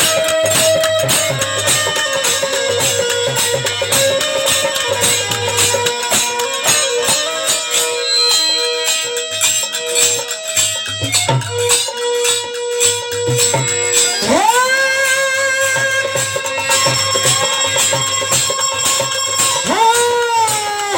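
Instrumental music of a Bhojpuri nirgun folk-devotional song: held melody notes over a steady hand-drum rhythm with jingling percussion. A melody note slides up into a long held tone about two-thirds of the way in, and again near the end.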